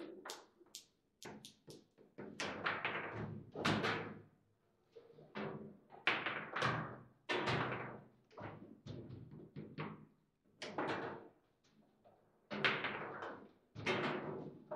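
Table-football (foosball) table in play: an irregular run of hard knocks and clacks as the ball is struck by the figures and rods and bounces off the table, each knock ringing briefly.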